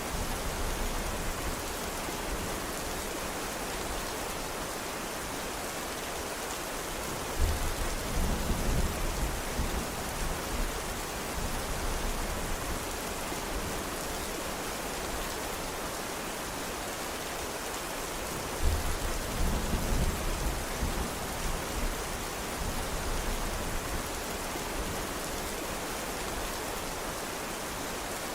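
Steady rain hiss. Twice, about seven and nineteen seconds in, a low rumble starts suddenly and lasts a few seconds.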